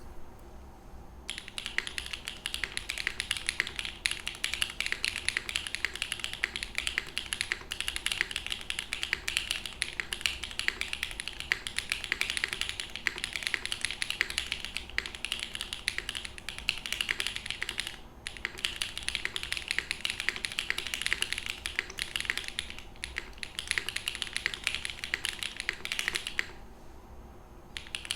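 Fast continuous typing on a Phoenix TKL mechanical keyboard with lubed Owlab Neon linear switches, a polycarbonate plate, a full brass bottom and no foam, with GMK keycaps: rapid dense keystroke clacks. The typing starts about a second in, breaks briefly around two-thirds through, and stops for a second or two near the end before starting again.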